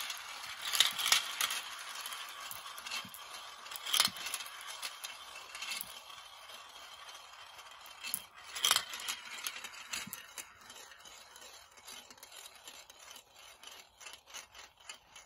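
Glass marbles rolling around the plastic funnel bowls of a toy marble run: a continuous rolling rattle broken by sharp clicks as marbles drop through the holes and strike the marbles below. The rolling slowly dies away toward the end.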